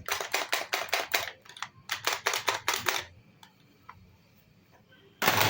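Plastic toy guns being handled: a quick run of sharp clicks and clacks, about four a second, for the first three seconds, then a louder clatter near the end.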